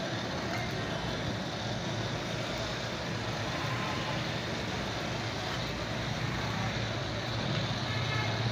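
Gas blowtorch burning with a steady roar as its flame heats a pan of scrap battery lead pieces, with street traffic rumbling in the background.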